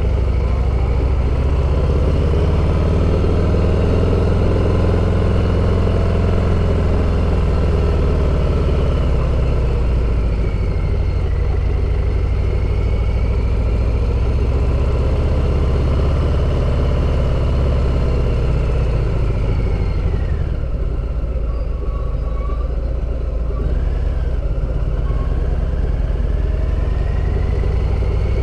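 Harley-Davidson V-twin motorcycle engine running loud on the move, its pitch rising and falling as it pulls away and accelerates. It eases off about twenty seconds in, then pulls again near the end.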